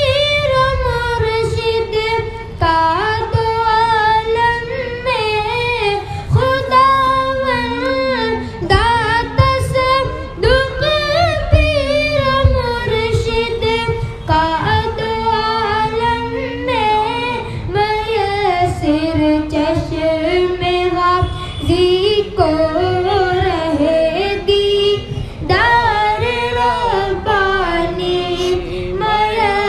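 A boy's high voice singing a manqabat, an Urdu devotional praise song, in long phrases with sliding, wavering ornamented notes.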